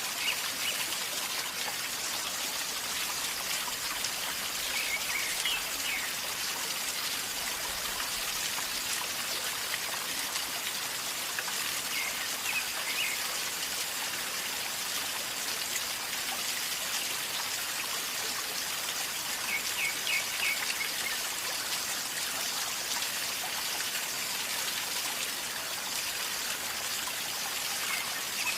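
A river gurgling as it flows, a steady rush of water. A few short bird calls come through several seconds apart.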